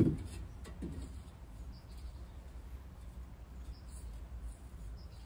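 Faint background: one soft, low thump at the very start, then a steady low hum with a few small, quiet handling sounds.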